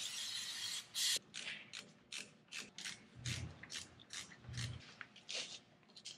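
Hand ratchet worked in short strokes, a quick series of clicks about two or three times a second, tightening the bolts of a new front brake caliper. A steady hiss runs underneath for the first second and then stops.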